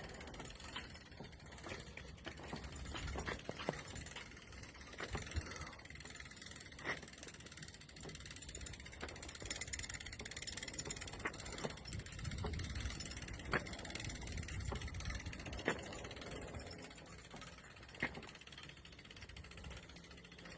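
Scattered metallic clicks and knocks from a boat trailer's fittings being worked, with a faint ratcheting like a hand winch, over a low outdoor rumble.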